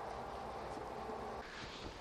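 Faint, steady buzzing of honeybees around an open hive.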